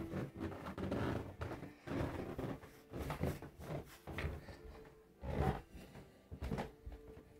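Footsteps going down carpeted stairs, a dull thud about once a second.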